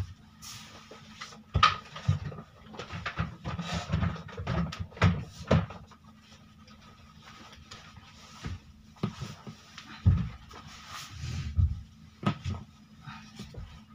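Twin bed frames being shoved and dragged together to form one queen bed: irregular knocks, bumps and low scraping thumps, with a quieter stretch in the middle.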